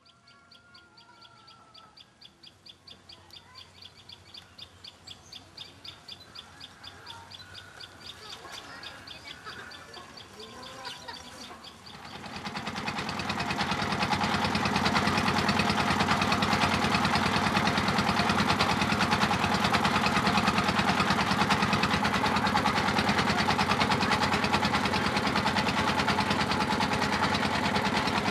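Birds chirping over a fast, high pulsing call. About twelve seconds in, a wooden riverboat's engine rises quickly and then runs loud and steady.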